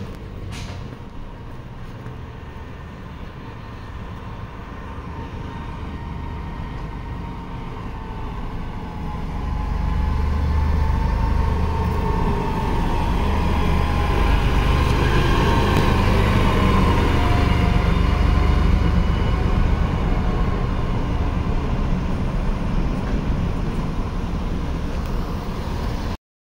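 Rubber-tyred sightseeing road train driving past: a low engine rumble with a whine grows louder from about nine seconds in, is loudest as it goes by, then cuts off suddenly near the end.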